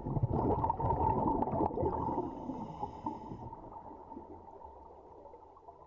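Underwater bubbling and gurgling from a scuba diver's exhaled air bubbles. It is loudest in the first two seconds, then fades steadily away.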